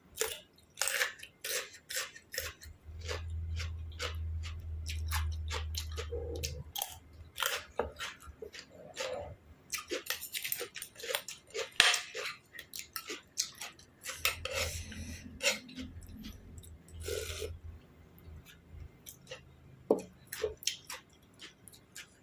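Close-up chewing and crunching of a mouthful of spicy seafood papaya salad and raw side vegetables, with many crisp crunches one after another.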